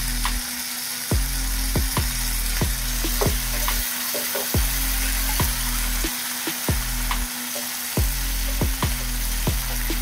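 Chilli-mushroom gravy sizzling in a kadai just after water has gone in, with a spatula stirring and striking the pan in regular strokes about every two-thirds of a second.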